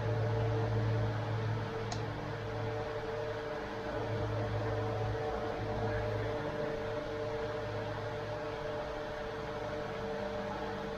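A steady mechanical hum from a machine running, with a brief faint click about two seconds in.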